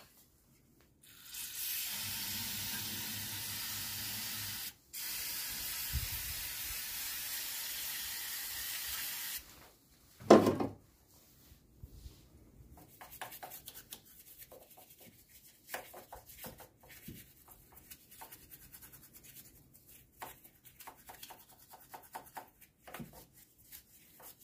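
Aerosol spray can sprayed in two long steady hisses of about three and four seconds, with a short break between them. About ten seconds in comes a single loud knock, then faint scattered rubbing and clicking of a brush at work in the engine bay.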